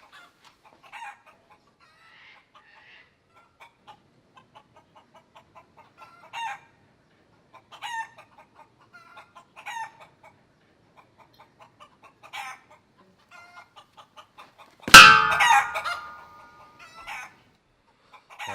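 Chickens clucking, short calls every second or two, with a sudden loud burst about fifteen seconds in.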